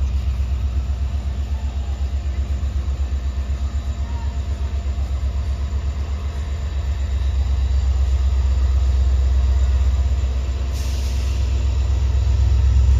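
Low, pulsing rumble of a WDP-4D diesel-electric locomotive's EMD 16-cylinder two-stroke engine as it pulls a passenger train away from a station, growing louder as it comes on. A brief hiss sounds about two-thirds of the way through.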